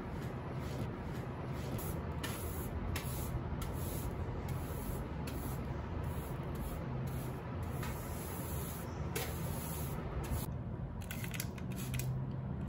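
Hand brush sweeping dust across a desk top in repeated strokes, then a plastic trigger spray bottle spritzed several times in quick succession near the end.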